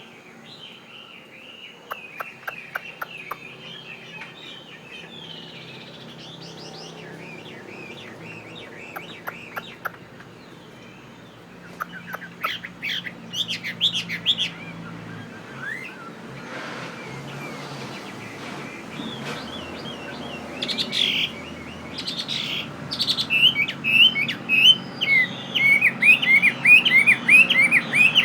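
Chinese hwamei (Garrulax canorus) singing: varied whistled phrases, fairly soft at first, then loud rapid runs of repeated slurred notes over the last few seconds.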